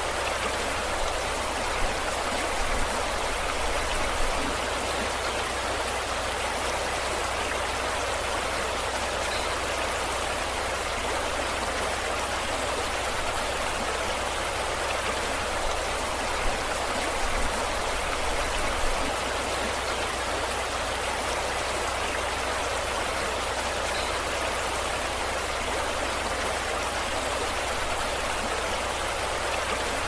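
Steady rush of water with small waves washing and splashing, with a few slightly louder splashes.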